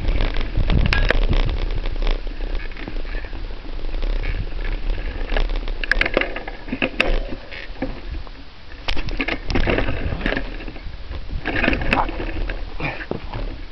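Wind rumbling on the camera microphone, with irregular crunching, clicks and rattles from movement along a dry dirt and gravel trail.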